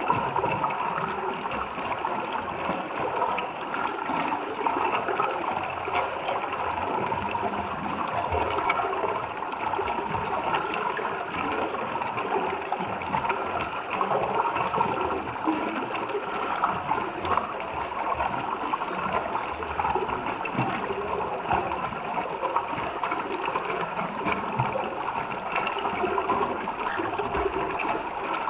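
Running water in a small stream, bubbling and gurgling steadily.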